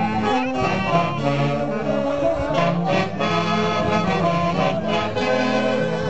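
Live band music: a Peruvian fiesta orquesta playing a dance tune, with wind instruments holding the melody over a full, continuous accompaniment.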